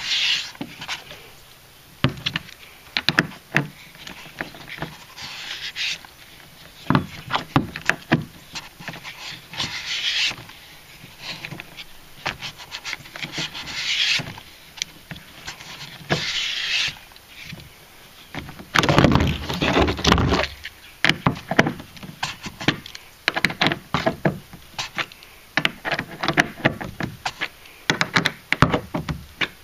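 Screwdriver of a Wenger RangerGrip 90 multitool driving screws into a kayak seat fitting, with hands and the tool handling the seat against the plastic hull: irregular clicks and taps broken by short scraping and rubbing stretches, with a heavier bout of bumping about two-thirds through.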